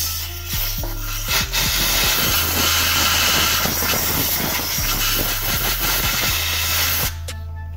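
Compressed air hissing hard from an air blow gun held down in a freshly drilled anchor hole in concrete, blowing out the drilling dust; the hiss cuts off suddenly near the end.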